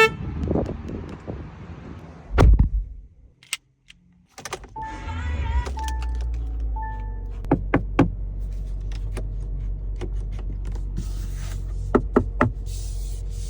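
2023 Kia Soul EX: a heavy door-like thump, a moment of quiet, then the engine coming on about four and a half seconds in and running at a steady idle. Short electronic chime tones sound just after it starts, with several sharp clicks and a hiss building near the end.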